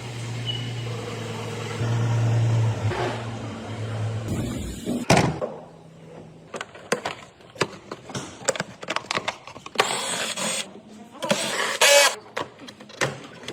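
Maybach V12 engine running at a steady idle, a little louder about two seconds in, then cut off with a sharp knock about five seconds in. After that come scattered clicks, knocks and short rattles of tools and parts being handled.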